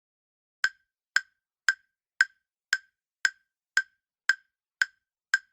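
Countdown-timer ticking sound effect: sharp, even ticks, about two a second, starting about half a second in, ten ticks in all.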